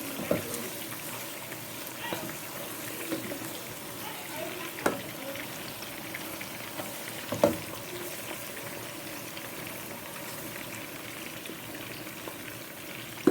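Blended garden egg frying in a pot with a steady sizzle, and a few sharp knocks of a stirring spoon against the pot.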